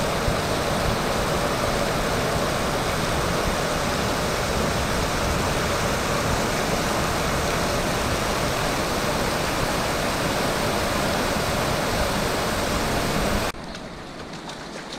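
Heavy rain pouring down in a downpour: a loud, steady hiss with no breaks, which drops suddenly to a much quieter background near the end.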